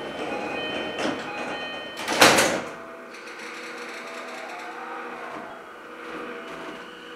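Inside a JR East E233-series train car standing at a station: short beeping chime tones and knocks, then the sliding doors shutting with a loud bang and rush about two seconds in. After that, a steady mechanical hum from the stopped train.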